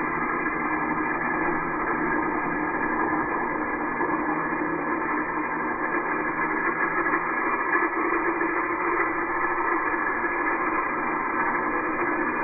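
Angle grinder with a cutoff wheel cutting through metal stock clamped in a vise: a steady motor whine and grinding, sounding muffled.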